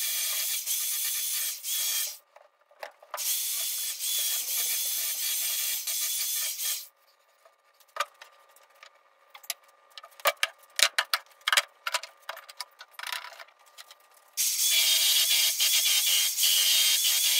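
Handheld belt sander running with a steady high whine as it sands a curved wooden board. It stops briefly about two seconds in and runs again for a few seconds. Then there are about seven seconds of scattered clicks and knocks, and near the end it starts up again, louder.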